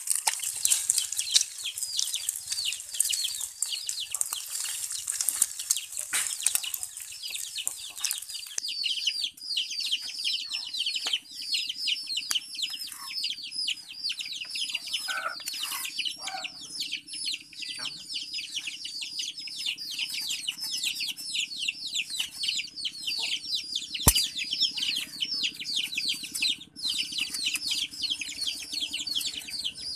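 Chicks cheeping continuously in quick, high, falling peeps. For the first several seconds a beaten egg frying in oil in a wok sizzles under them. Later a low steady hum runs underneath, and about 24 seconds in there is one sharp knock of a cleaver on a wooden chopping board.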